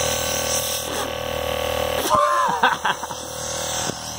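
Tesla Model S air-suspension compressor running steadily off a car battery, its electric motor humming as it blows air. A short voiced exclamation comes about two seconds in.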